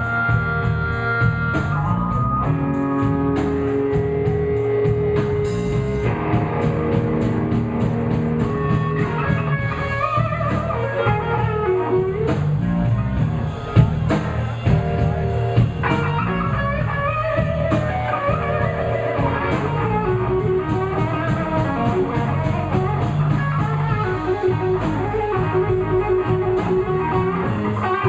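Live blues band playing an instrumental passage without vocals: a guitar plays lead lines with bent notes over a steady drum kit beat.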